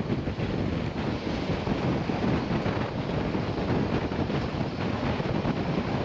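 Passenger train running at speed: a steady rumble and rattle, with wind buffeting the microphone.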